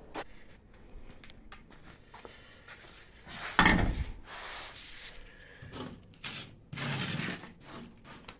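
Knocks, rubbing and scraping of old car body parts being handled and pulled loose, with one loud clatter about three and a half seconds in.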